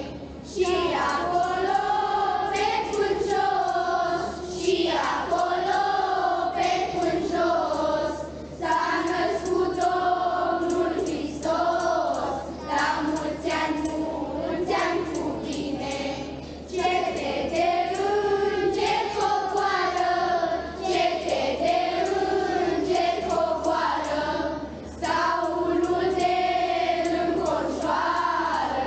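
A children's choir singing a Romanian Christmas carol (colindă), in sung phrases with short breaks between them.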